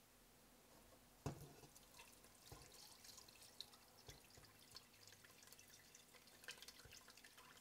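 Faint pouring and dripping of thick palm nut extract through a fine mesh strainer into a stainless steel pot, starting just after a light knock about a second in.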